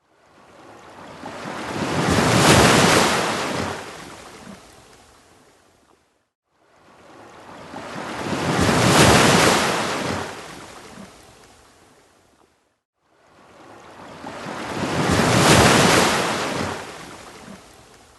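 Ocean waves breaking and washing up a sandy beach. There are three surges about six and a half seconds apart, each building to a peak and then fading away before the next.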